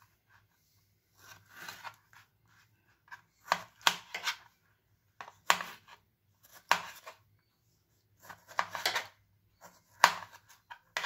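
Kitchen knife slicing a tomato on a plastic chopping board: irregular cuts and taps of the blade on the board, in short clusters a second or two apart.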